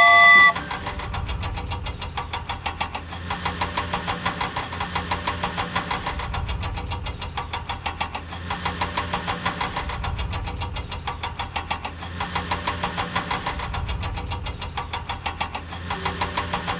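Vehicle engine sound running with a rapid, even knocking pulse, swelling a little louder now and then; it is an engine sound effect laid over plastic toy vehicles, which have no engines. A short bright chime sounds right at the start.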